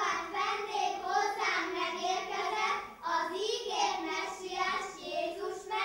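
A group of children singing a nativity song together in one melody line, in phrases with short breaks between them.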